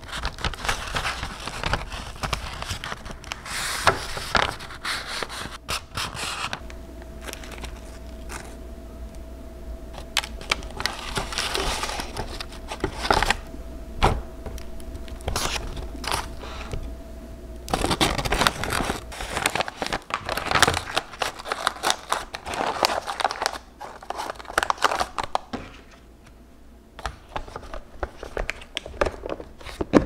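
Baking paper crinkling and rustling as it is folded into a glass container and a tart slice is lifted onto it, with short scrapes and light knocks of the container. A faint steady hum runs through the middle.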